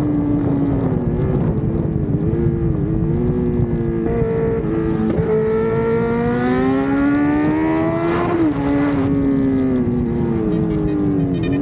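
Kawasaki Z900 inline-four engine running, its note rising and falling with the throttle: several brief dips, then a steady climb in pitch over about three seconds past the middle before it drops back.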